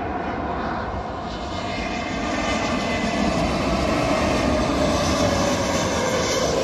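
Airbus A320 jet airliner flying past low on final approach to land, its engine noise growing louder through the first few seconds. A whine in the roar falls slowly in pitch as the aircraft passes.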